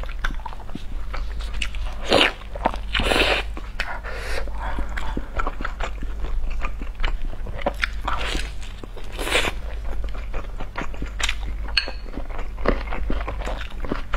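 Close-miked chewing and wet mouth clicks of a person eating a large soft steamed dumpling with a kidney-bean and meat filling, with a few louder, longer mouth sounds between the bites.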